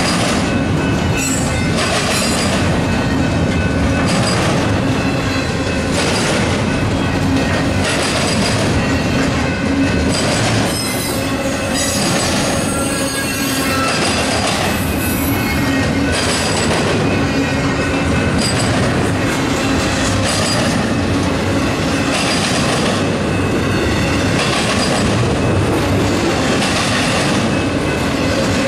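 Double-stack intermodal well cars rolling past at speed: a steady rumble of steel wheels on rail with a recurring clatter as the wheel trucks pass, and thin squealing from the wheels.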